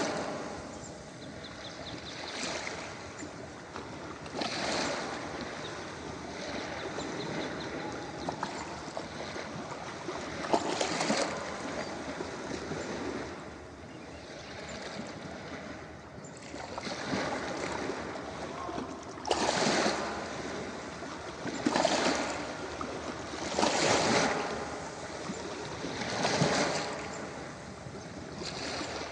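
Ocean surf on a beach: a steady wash of water noise with waves swelling and breaking every two to three seconds, coming more regularly in the second half.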